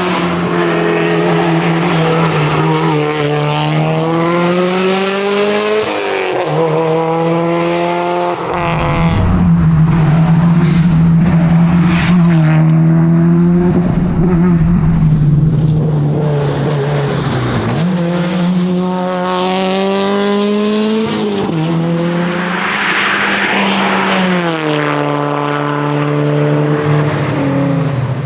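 Subaru WRX STI rally car's turbocharged 2.5-litre flat-four engine at racing speed, revving up hard and dropping back through repeated gear changes. Several climbs in pitch are each cut by a sudden drop at a shift, with a steadier, louder stretch of flat-out running midway.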